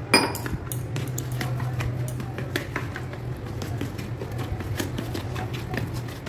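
Steel spoon stirring semolina and curd in a bowl, with many small scrapes and taps of the spoon against the bowl; a sharp clink just after the start is the loudest. A steady low hum runs underneath.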